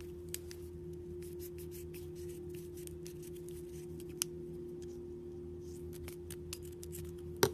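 Scissors snipping through the black mesh netting of a squishy mesh stress ball: many small, crisp clicks, with a louder snip near the end, over a steady background hum.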